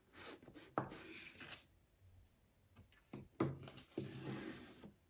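Kamishibai picture cards sliding against the wooden theatre frame as one card is drawn out to show the next. The sound comes in two faint spells of card rubbing on wood, each with a light knock.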